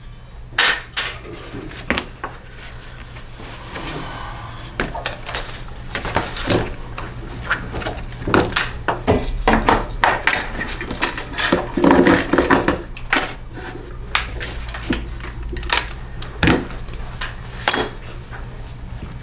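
Hand tools and loose metal parts of a push mower clinking and clattering as it is taken apart, in many short, irregular knocks and clicks.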